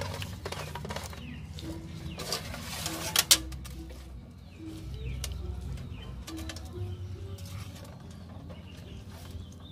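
Hands working a raw whole chicken over an aluminium basin, wet skin squelching and leaves rustling as green onion stalks are pushed into the cavity, with a few sharp clicks about three seconds in. Short low calls repeat in the background.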